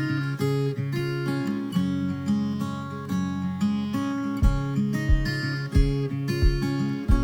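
Background music led by strummed acoustic guitar; a deep, steady beat joins about halfway through.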